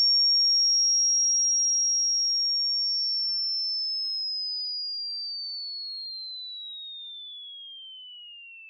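A single high-pitched electronic sine tone, holding steady near 6 kHz, then sliding smoothly lower over the last few seconds while fading steadily.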